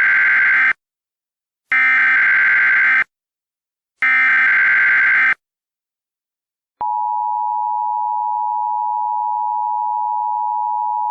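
Emergency Alert System SAME header: three bursts of harsh, warbling digital data tones, each just over a second long with about a second's gap between them. About seven seconds in, the steady two-tone EAS attention signal starts and holds, announcing the alert message that follows.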